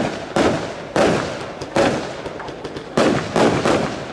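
Aerial fireworks bursting overhead in quick succession: about seven sharp bangs at uneven intervals, each trailing off in a rumbling echo.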